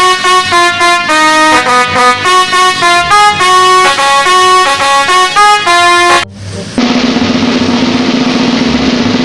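Multi-tone 'telolet' bus horn playing a quick tune of short notes that jump between pitches. About six seconds in it cuts off, and a long steady, buzzy blast follows.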